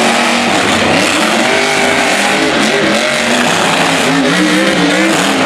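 Monster truck engines running hard and revving, several engines at once, their pitch climbing and dropping as the trucks race around the dirt course.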